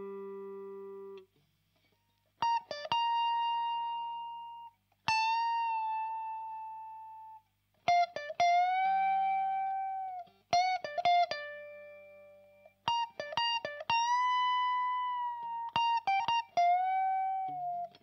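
Electric guitar (Fender Rocky Stratocaster) through a THD Univalve tube amp with a KT88 power tube into a Marshall Mode Four cabinet with Celestion G12-K100 speakers, playing a slow single-note lead line. A held note is cut off about a second in. After a short pause come long sustained notes that fade out slowly, string bends and vibrato, and a few quick flurries of notes.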